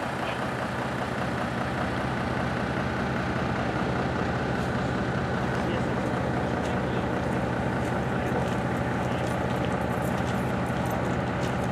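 A large engine running steadily at idle, a constant low hum with an even rumble over it.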